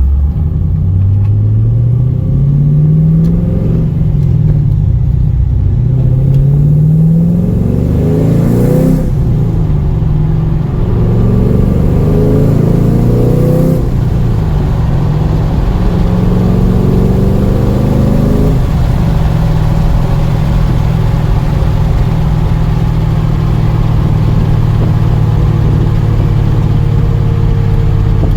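Chevrolet Camaro SS V8 accelerating up through the gears, heard from inside the cabin with the windows down: the engine note climbs and drops back at each upshift four times. It then settles into a steady cruise a little past halfway.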